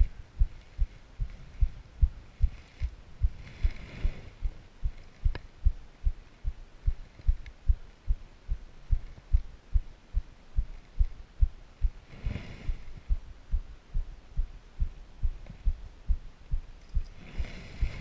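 Steady low thumping, about two and a half beats a second, with a few brief rushing swells of noise over it.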